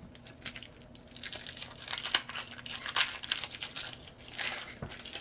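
Foil booster-pack wrapper being torn open and crinkled by hand: an irregular crackling and rustling.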